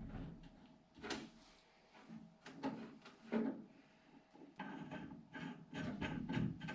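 Sheet-metal stovepipe pieces and elbows being handled and shifted around: scattered knocks and scrapes, a few separate ones and then a busier stretch of clatter near the end.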